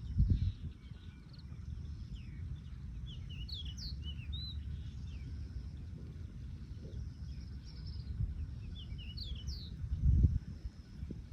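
Small birds chirping in short quick calls, in two bouts, over a steady low rumble. Two dull thumps, the loudest sounds, come just after the start and about ten seconds in.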